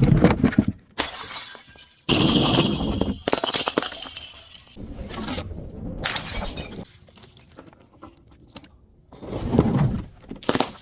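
Glass bottle breaking and shattering, with crunching of the pieces. The loudest, sharpest crash comes about two seconds in, with more crunching around the middle and again near the end.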